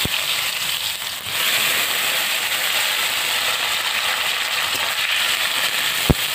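Boiled potato cubes sizzling as they fry in hot oil with whole cumin seeds. The sizzle gets louder about a second in. There is a sharp knock at the start and another near the end.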